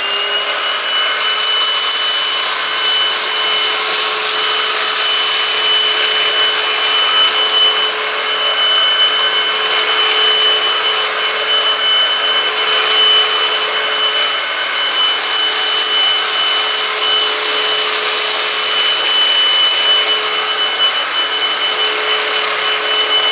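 Silvercrest SHAZ 22.2 F7 cordless cyclone vacuum cleaner running in eco mode on a thick carpet: a steady motor whine with a rushing hiss of air, held at an even speed throughout.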